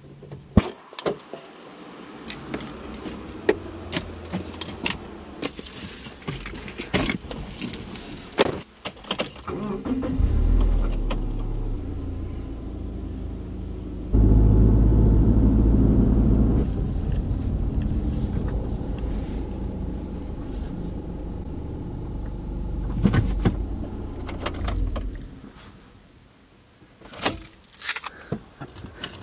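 Car keys jangling with sharp clicks, then the car's engine runs as a steady low drone for about fifteen seconds, jumping louder a few seconds after it begins, and dies away. More key jangling and clicks near the end.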